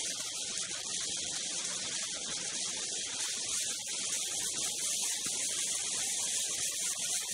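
Steady rushing hiss of a Polaris Rush Pro-R snowmobile moving at speed along a snowy trail, gathering a little speed.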